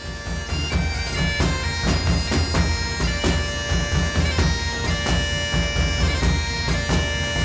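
Bagpipe music: a tune played over the pipes' steady drones, with a regular low beat underneath.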